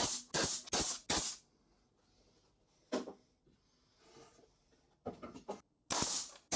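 Pneumatic brad nailer firing into plywood, nailing the fence pieces together. There is a quick run of about four sharp shots in the first second or so, a single shot about three seconds in, and two more near the end.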